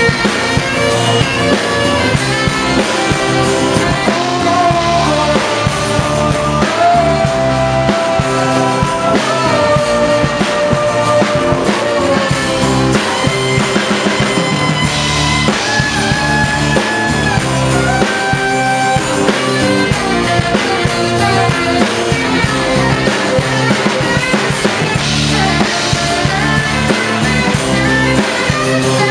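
Live rock band playing: saxophone, electric bass and guitar over a drum kit, with long held melody notes above a steady low beat.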